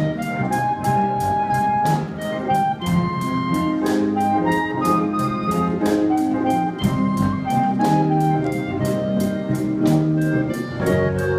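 Student big band playing jazz: horns, piano, guitars and bass under a clarinet carrying the melody in long held notes, with the drummer keeping a steady cymbal beat.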